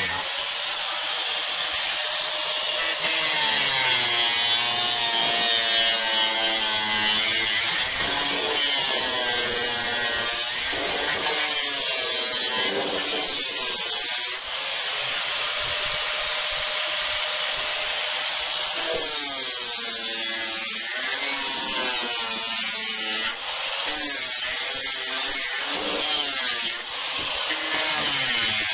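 Makita 115mm angle grinder with a 24-grit sanding disc grinding built-up paint off a wooden sash window frame. Its whine wavers up and down in pitch as the disc is worked along the wood, with two brief dips, about halfway through and near the end.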